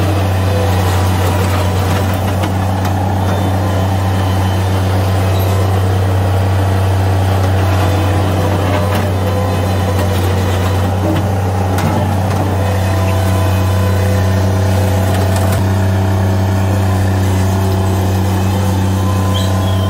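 Bobcat MT85 mini track loader's diesel engine running at a steady pitch while the machine scoops and moves gravel.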